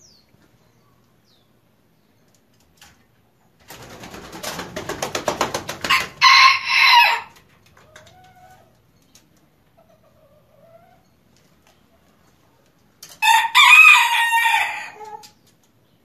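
Bantam rooster crowing twice. A quick run of wing-flaps builds up and leads straight into a short, high crow. A couple of soft low clucks follow, then a second, longer crow near the end dips in pitch as it trails off.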